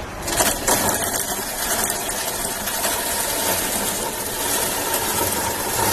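Home-made chainsaw running and cutting through a small piece of wood: a loud, steady saw noise that starts about a quarter second in.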